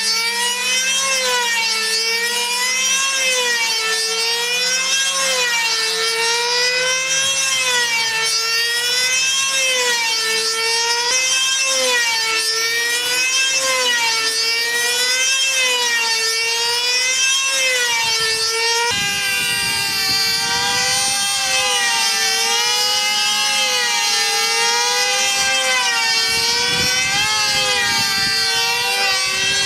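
Small two-stroke model aircraft engine of a control-line combat plane running flat out in a high scream, its pitch rising and falling about every one and a half seconds as the model circles the pilot on its lines. About two-thirds of the way through the sound changes and a second, steadier engine note is heard alongside the wavering one.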